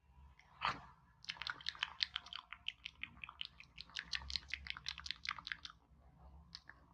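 Close-miked wet mouth sounds: lip smacks and tongue clicks of mimed eating, a single click, then a quick run of them from about a second in, stopping near six seconds.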